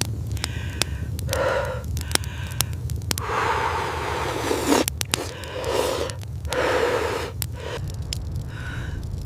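Wood fire crackling with scattered sharp pops, over a steady low rumble and several soft, breathy swells.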